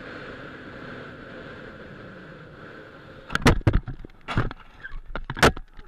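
Steady noise of a moving vehicle on the road, then about three seconds in a collision with a Suzuki SUV: a series of loud bangs and crunches over the next two seconds.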